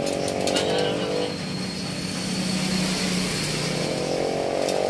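A motor vehicle's engine running close by, its pitch sliding down in the first second, holding steady through the middle, then rising again near the end. A few light metallic clicks from the spoked rim being handled.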